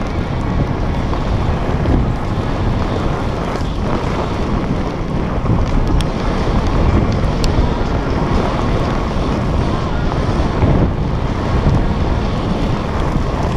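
Wind rushing over the microphone at speed, mixed with the steady rumble of a mountainboard's pneumatic wheels rolling over a gravel dirt trail.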